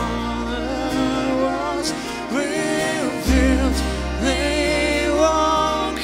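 Live band music: violin and acoustic guitar over a deep held bass note, the melody gliding between notes.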